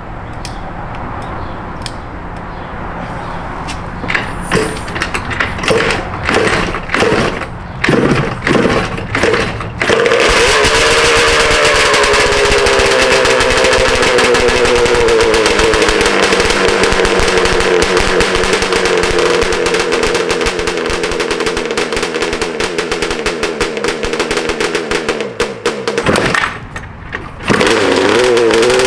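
485cc Yamaha Banshee-based twin-cylinder two-stroke drag engine on methanol, with chrome expansion-chamber pipes, being started for the first time. It fires in short, irregular bursts for several seconds, then catches about ten seconds in and runs extremely loud, its revs easing down a little before holding a steady idle. Near the end it almost dies and is kicked back to life.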